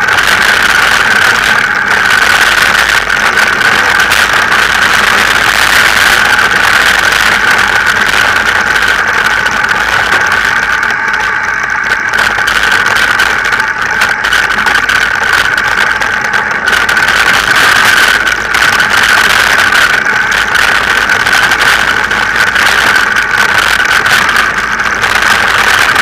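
Wind rush and constant rattling from a bike-mounted action camera on a mountain bike descending a rough dirt trail, jolted by the bumps. A steady high whine runs through it.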